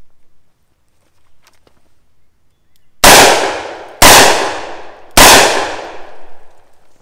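Three shots from a 2½-inch Smith & Wesson Combat Magnum revolver firing full-power 158-grain .357 Magnum loads double action in a failure drill. Two shots come about a second apart and the third follows a little later, each with a short echo dying away behind it.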